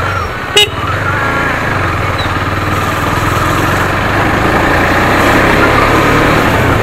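KTM Duke 250's single-cylinder engine running as the motorcycle rides along, heard from the rider's seat, a little louder in the second half. A single sharp click about half a second in.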